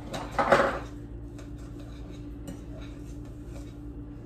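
Butter and sugar being squished and worked by hand in a glass mixing bowl, creaming them without a mixer: a brief louder squishing noise about half a second in, then scattered light clicks and taps against the glass.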